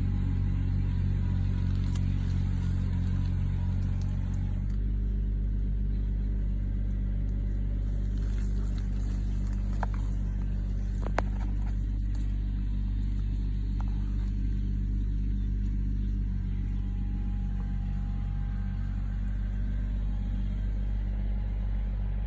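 Kubota 21 hp tractor's diesel engine running steadily under way, its note shifting slightly about five seconds in. There is a single sharp click about eleven seconds in.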